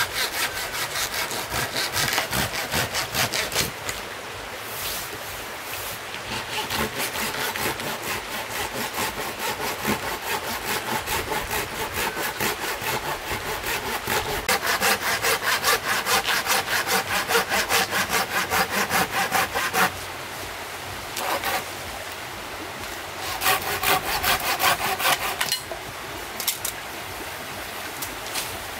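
A folding pruning saw cutting through a wooden log in quick, even back-and-forth strokes. The sawing pauses about twenty seconds in, resumes for two more seconds, then stops, leaving the steady rush of a flowing stream.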